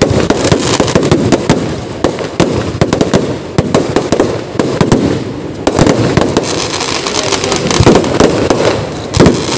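Fireworks barrage: firecrackers going off in a rapid, continuous string, many sharp bangs and crackles a second.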